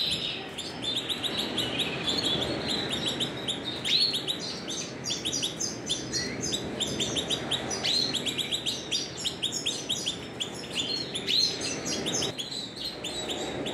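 Timbrado Español canaries singing: long runs of rapid high chirps strung into trills, with a few rising swept notes about four, eight and eleven seconds in.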